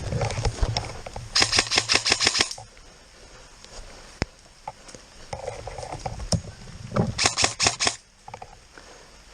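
Airsoft guns firing in two rapid strings of sharp cracks: about ten shots just over a second in, and about five more near the seven-second mark.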